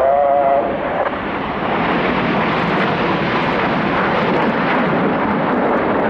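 Jet aircraft flying past at an airshow display, a steady rushing jet noise that fills in after about the first second and then holds.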